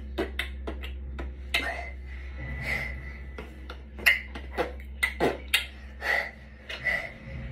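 A child making percussive mouth sounds, beatbox-style: an uneven string of sharp clicks and pops, some dropping in pitch, over a steady low hum.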